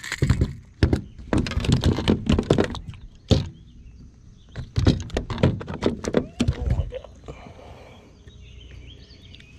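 Irregular knocks, clatters and thumps on a small fishing boat's deck and hull while a small bass is reeled in and landed, with one sharp knock about three seconds in; they die away in the last couple of seconds.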